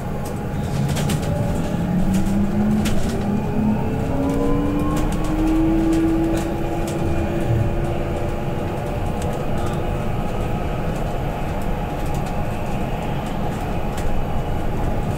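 Inside a BYD K9UB battery-electric bus on the move. The electric drive whine rises in pitch over the first few seconds as the bus accelerates, then holds steady over a constant rumble of road and tyre noise. There are a few light rattles.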